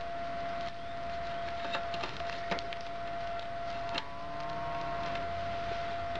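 A few light metallic clicks from bicycle chain links being handled in the fingers, over a steady high-pitched tone that runs throughout.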